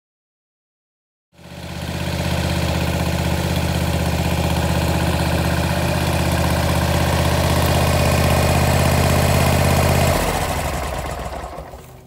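A steady engine hum starts suddenly out of complete silence about a second in and holds steady. It drops away about ten seconds in and fades over the last two seconds.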